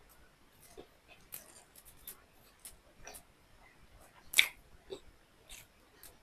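Close-miked eating of beef liver with rice: soft chewing with scattered wet mouth clicks, and one louder sharp click about four seconds in.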